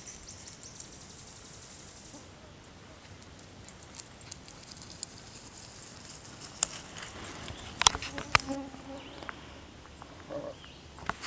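Footsteps through forest undergrowth: scattered sharp clicks and snaps of twigs and brush, loudest in a cluster about eight seconds in, with a faint high hiss over the first two seconds.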